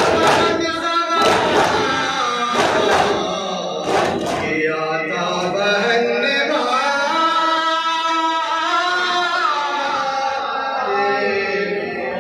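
Men chanting a soz, a Muharram lament, in unison, with a crowd beating their chests in time: about four loud slaps together in the first four seconds. After that the chant goes on alone, in long held lines.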